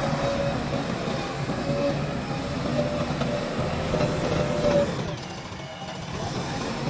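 JCB 3DX backhoe loader's diesel engine running under digging work, with a thin whine that comes and goes; the engine eases off briefly about five seconds in.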